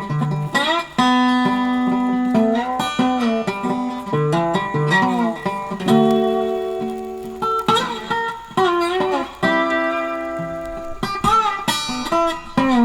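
Background music: a blues-style guitar tune of plucked notes, with several notes bent or slid in pitch.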